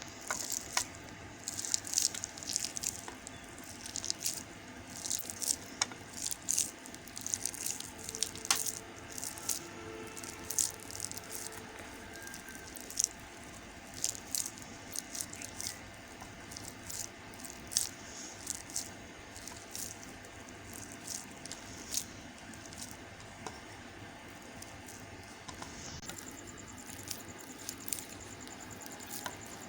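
A knife cutting through a bar of white soap, making many short, sharp crackles at an irregular pace that thin out toward the end.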